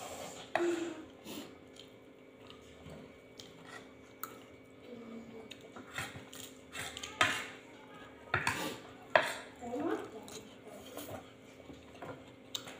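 Tableware clinking during a meal: spoons and fingers tapping and scraping on china plates and bowls in scattered clicks, with a few sharper knocks in the second half.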